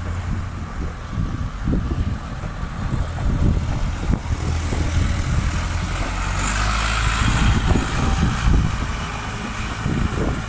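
Caterpillar RC80 forklift's four-cylinder diesel engine running steadily, with a rushing hiss joining for a couple of seconds past the middle.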